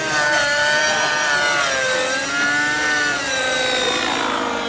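Velocity 50 N2 nitro RC helicopter's Redline 56 two-stroke glow engine and rotor running in flight, a buzzing whine. Its pitch dips and rises several times as the helicopter manoeuvres.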